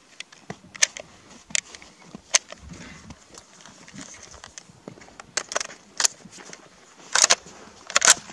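Dry twigs and leaves crackling and snapping underfoot in irregular steps through brush, with two louder crunches near the end.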